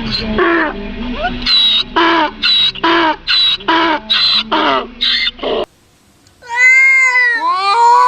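A pet animal gives a quick series of short, pitched cries, about two a second, that stop suddenly. After a brief silence a cat gives one long, loud yowl, and a second yowl rising and falling in pitch begins near the end.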